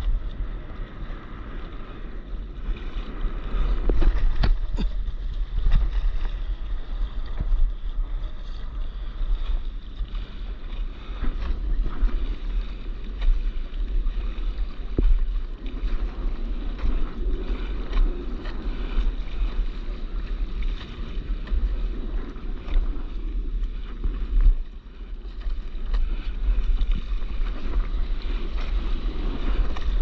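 Wind buffeting the microphone of a camera riding low on a stand-up paddleboard, a loud, continuous low rumble, over water sloshing and lapping against the board in choppy sea. A few brief knocks come about four to five seconds in.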